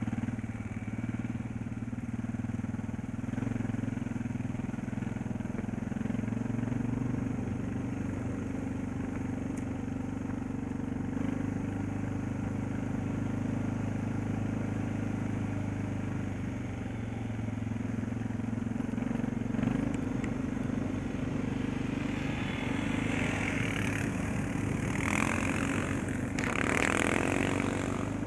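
Dirt bike engine running steadily as the bike is ridden along a dirt track, with patches of rushing noise in the last several seconds.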